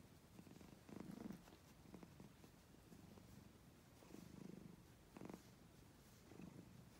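Domestic cat purring softly while being stroked, the purr swelling and fading a few times.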